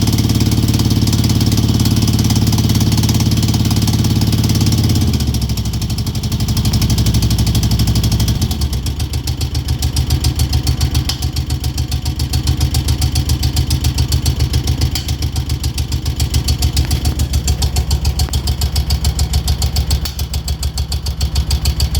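Moto Guzzi California EV's air-cooled V-twin engine held at raised revs, then dropping back about five seconds in and settling into a steady, pulsing idle. The owner is investigating a ticking noise from the engine.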